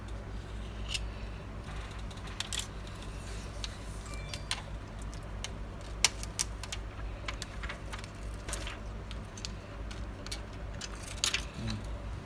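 Scattered light clicks, ticks and crinkles from handling an iPhone 7 Plus frame on a bench and peeling the plastic liner off its new waterproof adhesive seal. The sharpest click comes about halfway through, and a steady low hum runs underneath.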